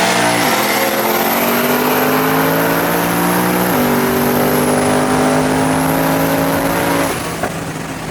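Twin-turbo Ford Mustang's Coyote V8 at full throttle in a street race, winding up through the gears with two upshifts (the pitch drops about half a second in and again near four seconds) and a high turbo whistle over the engine. About seven seconds in the throttle lifts off and the engine note falls away.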